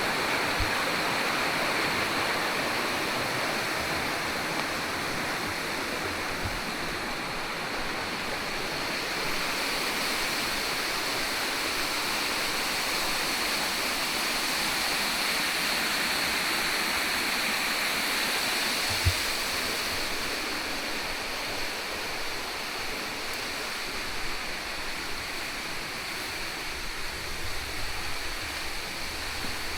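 Waterfall rushing steadily, a dense even roar of falling water, with a steady high whine above it. A single short knock about two-thirds of the way through.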